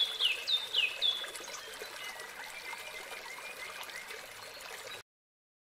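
Nature ambience of a babbling stream with a bird chirping: a run of about four quick falling chirps in the first second, then fainter thin calls over the water. It cuts off abruptly about five seconds in.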